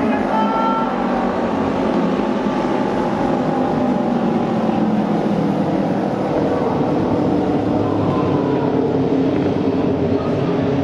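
Auto race motorcycles' 600 cc twin-cylinder engines running loud and steady as the bikes lap the oval track.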